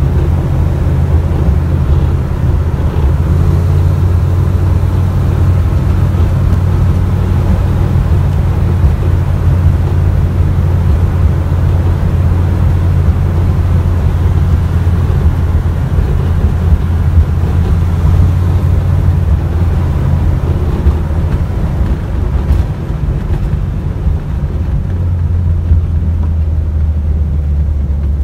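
1969 Chevrolet Camaro SS's big-block V8 and exhaust heard from inside the cabin while driving, a steady deep drone with road noise. The engine note drops lower a few seconds before the end as the revs fall.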